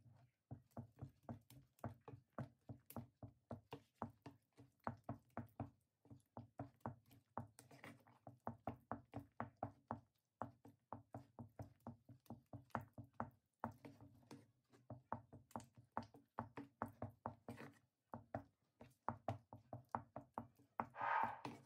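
Wooden spatula knocking against the pot as it stirs a thick, sticky muscat mixture, in quick runs of about three to four knocks a second with short pauses. The mixture is stirred without stopping so that it does not form lumps.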